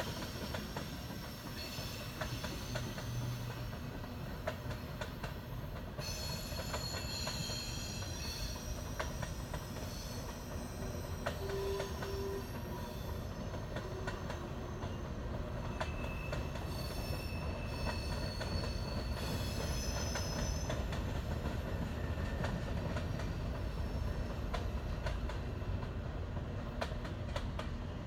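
Canadian Pacific train rolling past: a steady low rumble with frequent clicks of wheels over the rails and high-pitched wheel squeal that comes and goes.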